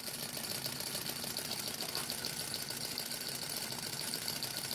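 Small model Stirling engine running with a fast, even mechanical ticking clatter. The owner thinks it is about to stop as its alcohol burner runs low.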